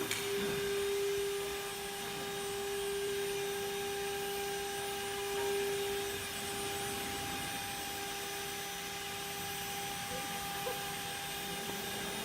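CNC router's ATC spindle running at a constant speed, a steady whine over a light mechanical hiss.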